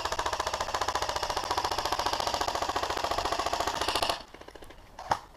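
Airsoft gun firing a long full-auto burst, a fast even rattle of shots that stops about four seconds in. A single sharp click comes near the end.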